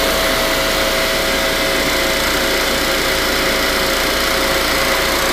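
Refrigerant recovery machine running steadily, with a low hum and a faint even whine, as it draws the refrigerant out of the sealed system through the gauge hoses.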